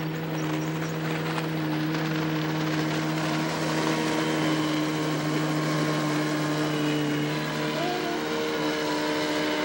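A motorboat engine, on a 2002 Penn Yan Swift, runs under way with a steady drone over a rushing hiss. Its note changes about eight seconds in.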